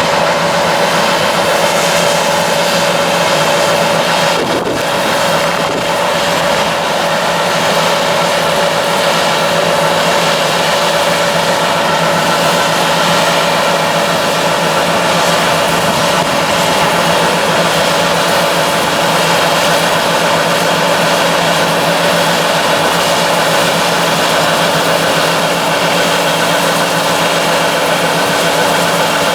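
John Deere 9600 combine running steadily: a constant diesel engine drone with the whir of its harvesting machinery.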